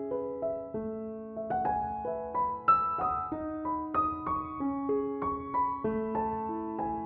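Gentle piano music: a melody of single notes over held lower notes, at an even, unhurried pace.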